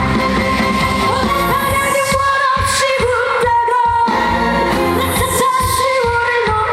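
Korean trot song: a voice singing a melody with vibrato over a backing track with a steady bass beat.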